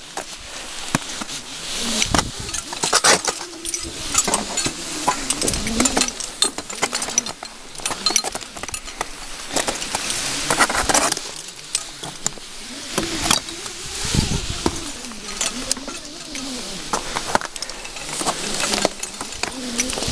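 Crampons scraping and knocking on waterfall ice, with metal gear clinking, as an ice climber abseils down the frozen fall. The sound is a run of irregular scrapes and sharp clicks.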